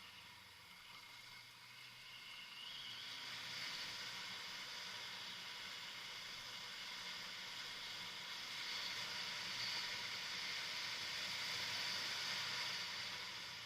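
Kawasaki Versys motorcycle on the move off-road: a faint low engine note under a steady hiss that grows louder about three seconds in.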